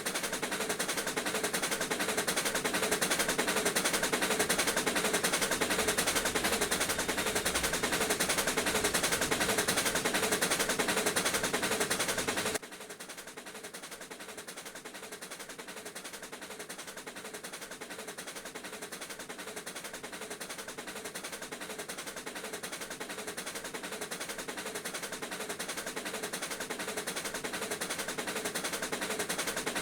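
Pennsylvania Railroad steam locomotives 7002 and 1223 doubleheading at speed: a fast, dense clatter of exhaust beats and running gear. About twelve seconds in it drops suddenly to a quieter level and then slowly grows louder again.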